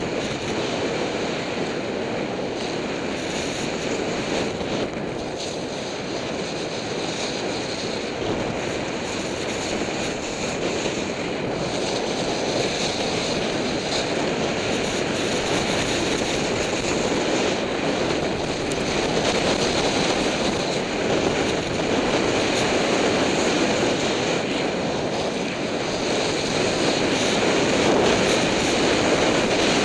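Wind rushing over the microphone of a skier's body-worn camera, with the hiss and scrape of skis running over packed snow on a downhill run; a steady rush that grows a little louder near the end.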